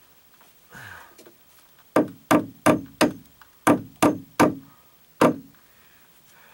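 Hammer driving cable staples over Romex wire into the wooden framing: eight sharp blows in quick runs, starting about two seconds in.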